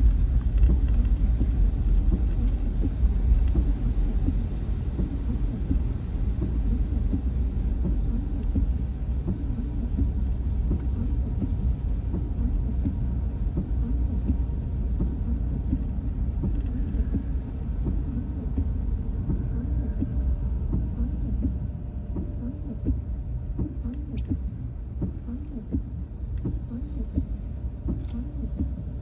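Steady low rumble of a car driving on a rain-soaked road, heard from inside the cabin, easing slightly in the last few seconds.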